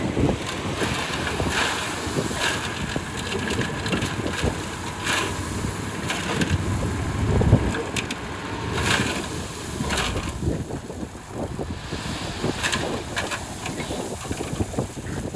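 Heavy earthmoving machinery working gravel: a diesel engine running, with repeated short clanks and crunching, and wind buffeting the microphone.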